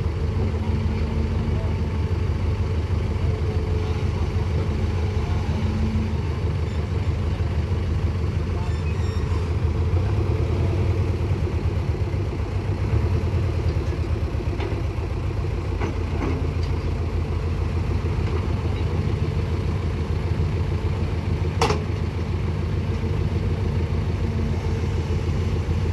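Diesel engines of heavy trucks and an excavator running steadily with a low, even rumble. One sharp knock about three-quarters of the way through.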